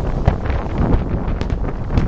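Aerial firework shells bursting: several sharp bangs over a steady low rumble of wind buffeting the microphone.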